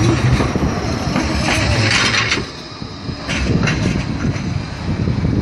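Modern Bombardier Flexity 2 tram running past close by on street track and moving away, its wheels and running gear making a steady rail rumble with hissy surges.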